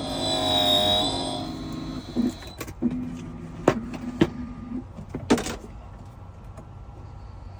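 Background music that ends about a second and a half in, followed by a few sharp clicks and knocks with a short steady hum in the middle.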